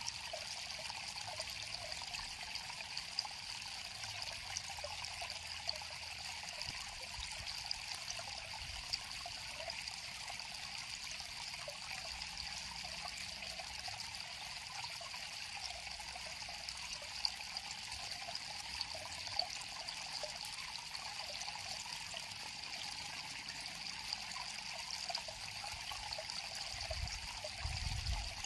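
River water flowing with a steady trickling, bubbling sound. A brief low rumble comes near the end.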